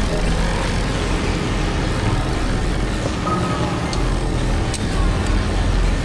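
Dark ambient electronic soundscape: a dense, rumbling noise drone with a steady low hum underneath. A brief thin tone about three seconds in, and a couple of faint sharp clicks a second or so later.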